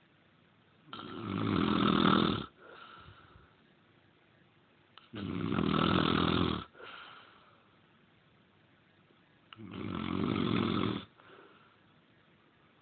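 Loud snoring: three long snores about four seconds apart, each followed by a short, softer breath out.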